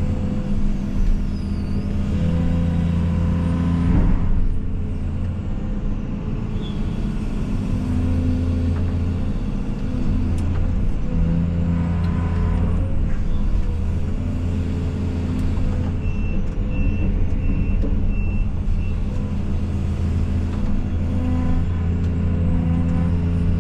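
Case CX220E excavator's diesel engine running under working load, its note rising and easing several times as the hydraulics work. About sixteen seconds in, a run of short high beeps lasts for about three seconds.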